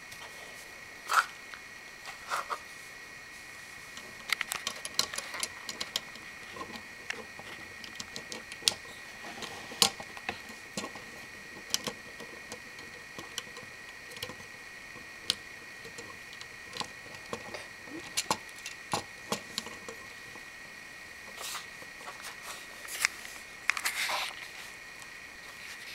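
Hard plastic Lego Bionicle pieces clicking and snapping as they are handled and pressed onto the figure's joints, in irregular short clicks, busiest in two stretches, with a small cluster near the end.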